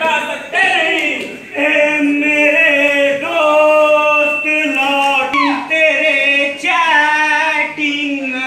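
A song sung by several voices, with long held notes that slide from one to the next.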